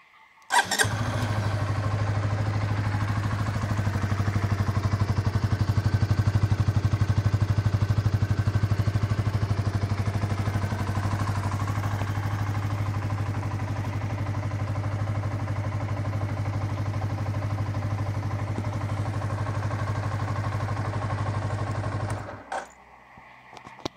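Honda CBR125R's single-cylinder four-stroke engine starting up about half a second in and idling steadily for about twenty seconds, then switched off suddenly near the end, followed by a couple of brief clicks.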